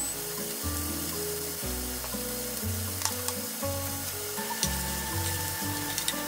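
Chopped mushrooms sizzling steadily in a nonstick frying pan over a gas flame, with a few sharp clicks, one about halfway and more near the end. Background music with a slow bass line plays under it.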